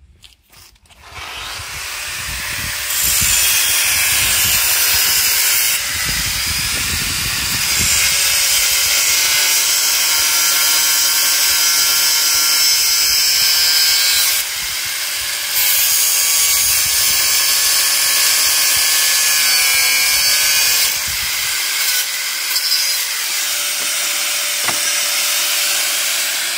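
Angle grinder with a cutting disc starting up about a second in and cutting through the steel tube of a scooter frame, a loud steady whine whose level and pitch shift a few times as the disc bites into the metal and frees.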